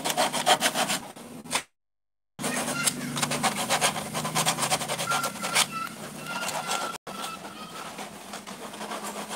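Repeated hand scraping and rubbing strokes against the cut edge of a drilled planting hole in PVC pipe, smoothing it, with a short break about two seconds in.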